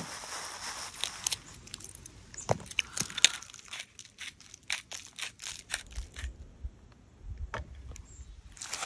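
A plastic bag rustling, then a handheld spice grinder clicking as it is twisted, about three to four sharp clicks a second for a few seconds.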